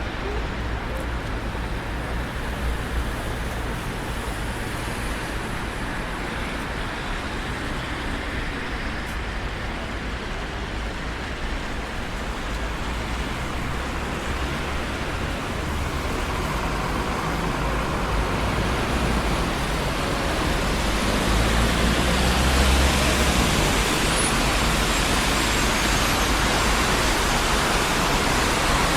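Steady traffic noise from a busy city road: a continuous rumble and tyre hiss, swelling from about halfway through as a vehicle passes close, loudest a little after two-thirds of the way in.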